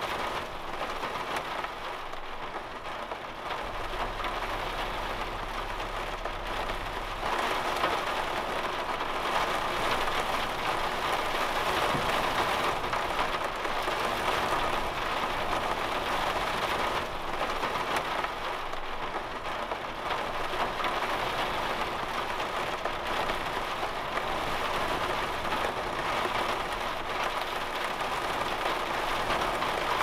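Heavy rain falling steadily on the roof of a camper van, heard from inside; the rain grows heavier about seven seconds in.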